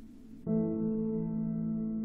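Background music: a held new-age chord of several steady tones comes in suddenly about half a second in and sustains.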